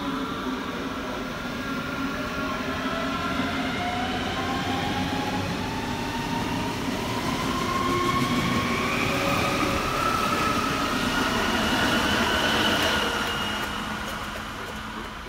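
Red electric S-Bahn multiple unit pulling away, its traction motors whining in several tones that rise steadily in pitch as it speeds up. The sound builds to its loudest about two-thirds of the way in, then fades as the train draws away.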